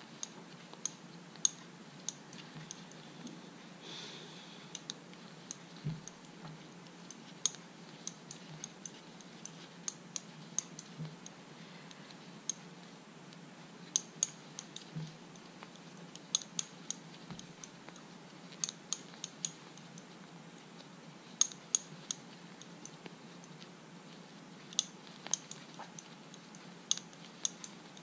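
Irregular sharp clicks, sometimes several in quick succession, of a metal crochet hook knocking against long painted fingernails while double crochet stitches are worked into a magic ring.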